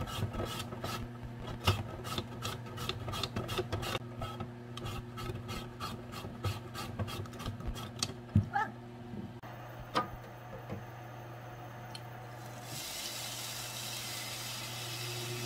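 Peeled potato pushed back and forth over a mandoline slicer's julienne blade, rasping in regular strokes about three a second. The strokes stop after about nine seconds, followed by a single knock. Near the end comes a steady hiss of julienned potato sizzling in an oiled pan.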